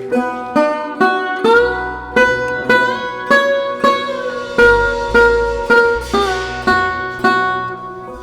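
Sarod playing a melody of separate plucked notes, with some notes sliding smoothly up or down in pitch.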